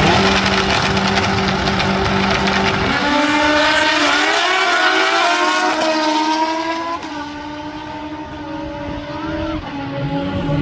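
Drag-racing motorcycles held at a steady high rev on the start line, then launching about three seconds in and accelerating hard down the strip. The engine pitch climbs and drops back with each gear shift, and the sound eases off after about seven seconds as the bikes pull away.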